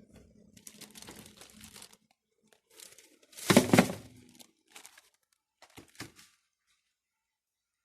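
Crumpling and rustling of something being handled, in short irregular bursts, with one loud crinkling burst about halfway through and a few brief rustles after it.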